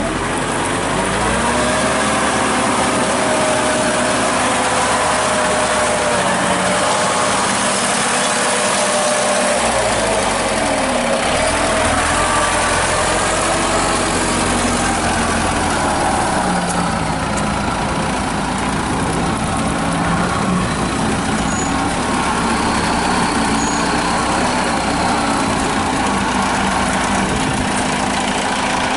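Engine of a '102' tracked rice combine harvester running as it drives loaded with sacks of harvested rice. The engine note dips and rises a few times.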